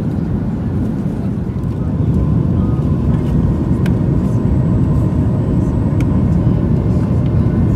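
Steady cabin roar of a Boeing 737-900ER in flight on descent: the CFM56-7B engines and rushing air heard from inside the cabin. It grows a little louder about two seconds in.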